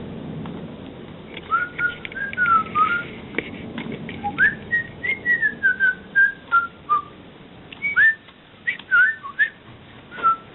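A person whistling a broken, wandering tune in short notes that slide up and down, with a few light clicks in between.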